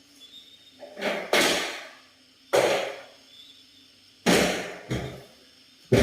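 Wooden wardrobe doors being opened and shut: a run of about five wooden knocks and bumps as the doors meet their stops and frame. The first, about a second in, swells briefly before the hit.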